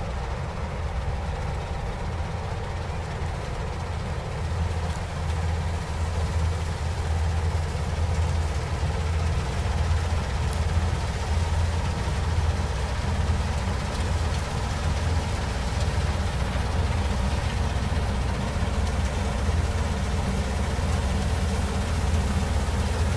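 Combine harvester's engine running steadily with a deep hum while it cuts a standing mustard crop, getting somewhat louder after a few seconds.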